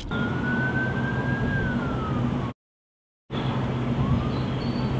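A siren wailing: one slow rise and fall in pitch over a steady low hum. The sound cuts out completely for under a second midway, then a second rising wail begins.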